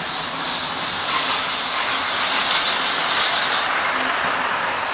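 Model trains running around the layout's track: a steady rolling noise from the wheels and motors.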